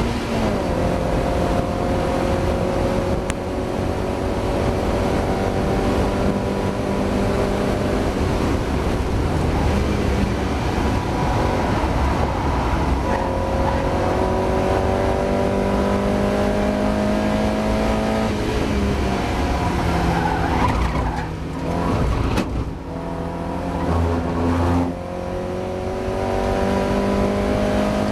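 Mazda MX-5 race car's four-cylinder engine pulling hard, its pitch climbing steadily through each gear with several sharp drops at upshifts. About three-quarters through it lifts off and changes down, then pulls again.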